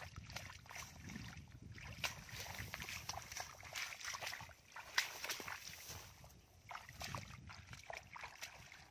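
Bare feet treading and stirring in soft mud and shallow water: irregular squelching and small splashes.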